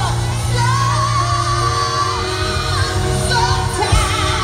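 Live band music with a woman singing a wavering melodic line over a sustained low bass, with a brief thump near the end.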